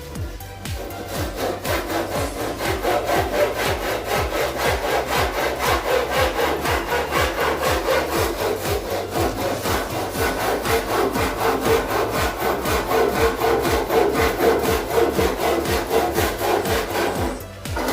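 Saw cutting through wood with quick, even back-and-forth strokes.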